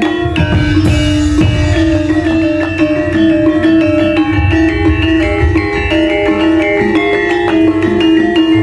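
Javanese gamelan ensemble playing over a sound system: bronze metallophones ring a steady run of struck notes over repeated low drum strokes.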